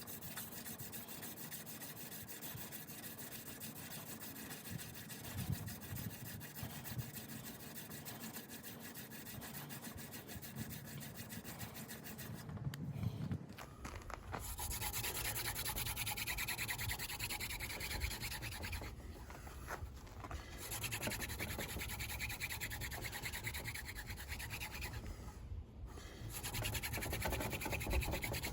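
Horseweed hand drill spindle spun back and forth between the palms against a hard wooden fireboard, a steady fast rubbing of wood on wood. About halfway through it gets louder, as the drilling turns harder and faster to build heat for an ember, with a couple of brief breaks.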